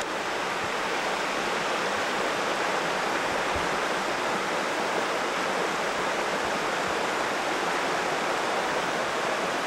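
A fast-flowing woodland creek rushing and splashing over rocks, a steady rush of water.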